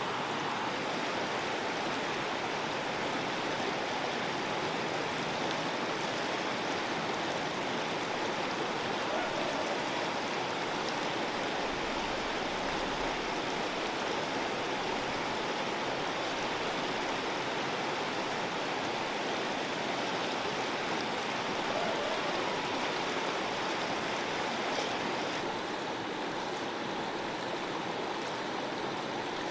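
River water flowing steadily past, an even wash of noise that holds without a break.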